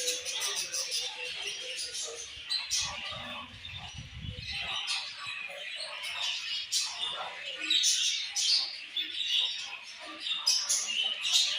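A flock of budgerigars chattering and chirping without a break, many short calls overlapping.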